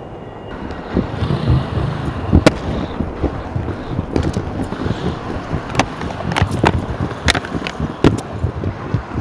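Aggressive inline skate wheels rolling over stone slab paving: a steady rolling rumble with a string of sharp clacks, starting about a second in.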